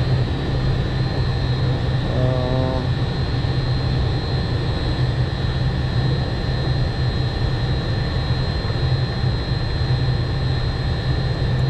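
Steady drone of rooftop HVAC equipment running: a constant low hum with a thin, high, steady whine over it.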